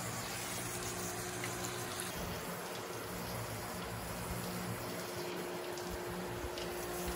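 Steady rush of running water, as from a tap or hose, with a faint low hum underneath.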